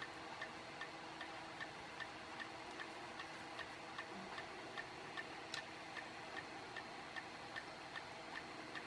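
Faint, steady ticking, about two or three ticks a second, with one sharper click about five seconds in.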